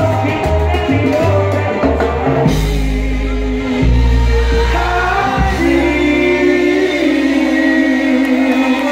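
Live salsa band with a male lead singer on a microphone, heard through the PA. A bouncing bass line and percussion drive the first couple of seconds, then the band switches to long held chords over a sustained bass note.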